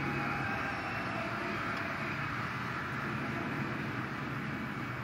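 A steady mechanical drone: a low hum under an even wash of noise, unchanging throughout.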